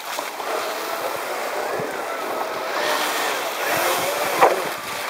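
Small jet boat running past on a shallow river: a wavering engine whine over the rush of water from its jet and spray, loudest as it passes close about four seconds in.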